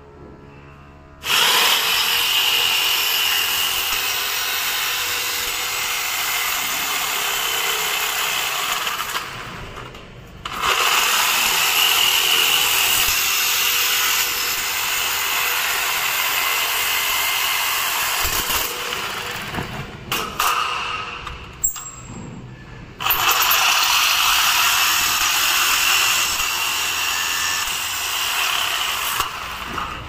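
DeWalt jigsaw sawing through a perforated steel cable tray, a loud steady buzzing cut. It runs in three long stretches of several seconds each, stopping briefly between them.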